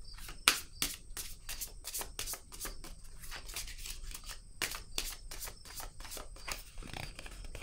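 Tarot cards being handled and shuffled: a quick, irregular run of crisp card snaps and slides, several a second, with one sharper snap about half a second in.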